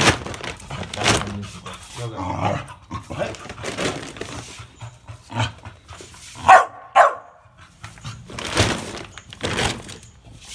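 Black Labrador retriever giving two short, sharp yips about six and a half seconds in, excited at feeding time, with the crinkling and rustling of a plastic dry-food bag being handled throughout.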